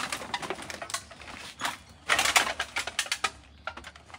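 Rustling, scraping and knocking of a bulging woven plastic sack of scrap being pushed and settled onto a dial platform scale, in irregular strokes with the loudest burst about two seconds in.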